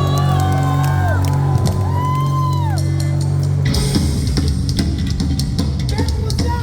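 Live hardcore punk band playing loud and amplified: held low guitar and bass notes with high sliding tones over them, then drums and the full band come in hard about three and a half seconds in.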